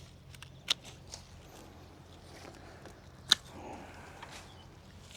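Pruning shears snipping through rose stems: two sharp snips about two and a half seconds apart, with a few fainter clicks and some rustling of the cut foliage.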